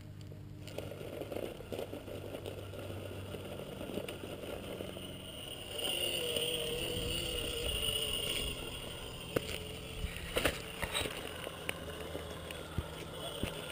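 Gmade Sawback RC scale crawler's Holmes Hobbies 27-turn brushed motor and geared drivetrain whining as the truck crawls over rock. The whine is louder and steady for a few seconds in the middle, with tyres scraping and a couple of sharp knocks against the rock after it.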